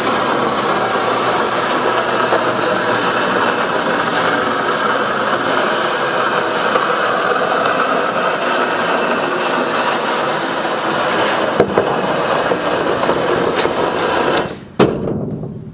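Jobsite seamless gutter machine running, its rollers forming sheet-metal gutter that feeds steadily out of the machine. The steady noise winds down about a second before the end, followed by a single sharp knock.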